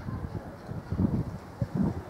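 LMS Stanier Black Five 4-6-0 No. 45407, a two-cylinder steam locomotive, approaching under power with a heavy exhaust: low, uneven chuffs, the strongest about a second in and near the end, mixed with wind buffeting the microphone.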